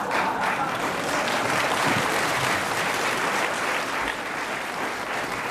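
Studio audience applauding: many hands clapping in a steady, dense patter.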